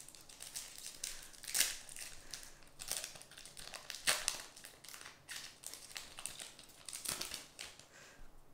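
Foil Pokémon booster pack wrapper crinkling in the hands, in irregular rustles and crackles as the packs are handled and opened.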